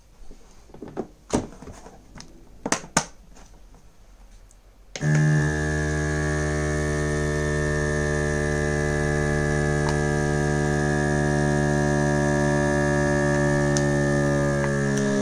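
A few sharp clicks and knocks as the vacuum sealer's lid is closed. About five seconds in, the SilverCrest vacuum sealer's pump starts with a steady electric hum, drawing the air out of the bag. Its pitch dips slightly near the end.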